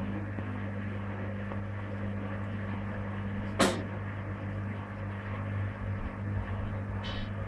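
Servis Gem M310 washing machine running in its rinse stage, a steady low hum throughout. A single loud, sharp click sounds about halfway through, and a fainter click comes near the end.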